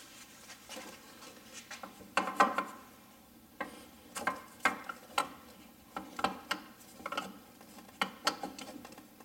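Irregular metal clicks, knocks and scraping as an ATV's electric starter motor is wiggled loose and pulled out of the engine case.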